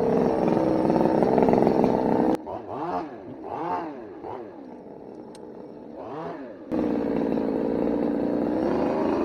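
Small two-stroke chainsaw engine running steadily. About two seconds in it drops suddenly quieter and rises and falls in pitch several times, then comes back to the steady louder running near seven seconds in.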